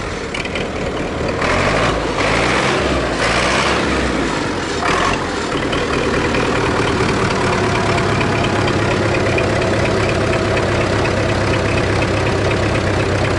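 MTZ-82 tractor's four-cylinder diesel engine running on its first run after a piston group replacement. It is uneven with a few brief rises in the first five seconds, then settles to a steady idle.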